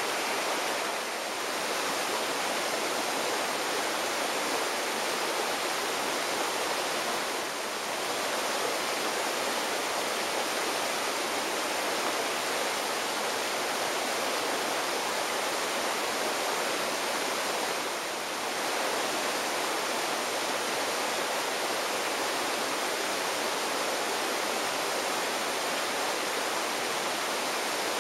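A steady, even rushing noise like running water, with no rhythm in it, dipping briefly in level about three times.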